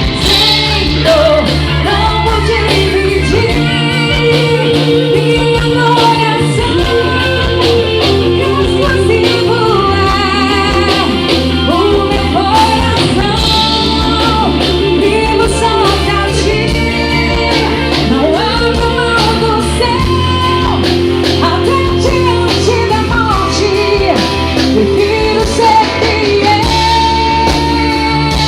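Live band of drums, electric bass, electric guitar and keyboards playing a gospel song, with a woman's singing over it.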